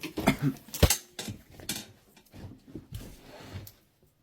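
Tools knocking and scraping against the scooter's wheel and tyre as the tyre is being levered off the rim. It is an irregular run of knocks and scrapes, with the sharpest knock about a second in, and it stops shortly before the end.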